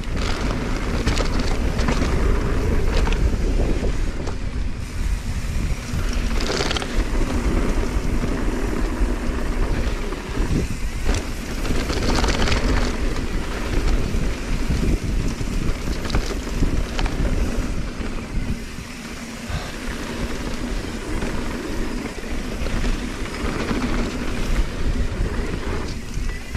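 Wind rushing over the microphone and mountain bike tyres rolling over a dirt trail, with occasional clatters from the bike over bumps.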